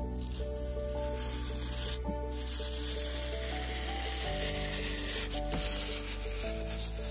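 Shoemaker's knife scraping as it cuts through a paper shoe pattern, an even rasping hiss, over slow background music with held notes.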